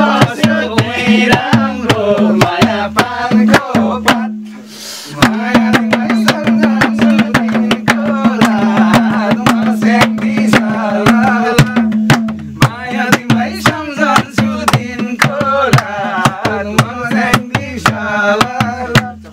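Madal hand drum played in a quick, driving rhythm under voices singing a Nepali folk song, with a brief break about four seconds in before the drumming and singing resume.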